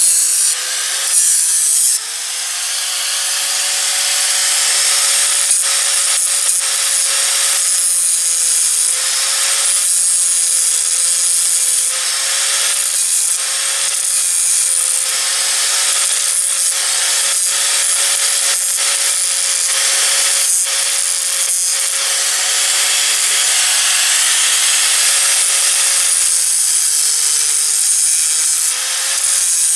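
Angle grinder dressing down fresh weld built up on a broken gear tooth, the disc grinding continuously on the metal. The motor's whine holds steady and dips briefly in pitch now and then as the disc bites, most noticeably near the end.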